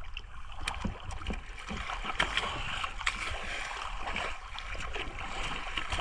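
Water noise: a steady rushing hiss with a low rumble and many scattered small clicks and splashes.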